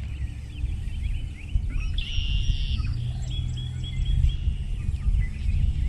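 Several birds chirping and singing, with a buzzy trill about two seconds in and a quick run of short repeated notes a second later, over a steady low rumble.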